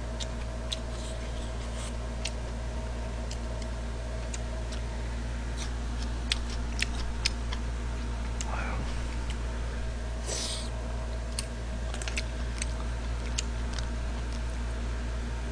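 Close-miked eating of a bowl of jjamppong noodles: scattered small clicks of chewing and chopsticks, a cluster of them about six to seven seconds in, and a brief slurp about ten seconds in, over a steady low hum.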